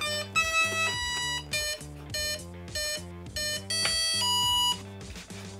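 Electronic speed controllers of a twin-motor electric RC plane beeping at power-up after both flight batteries are connected. Short beeps come about twice a second, mixed with several longer held tones, and they stop about five seconds in.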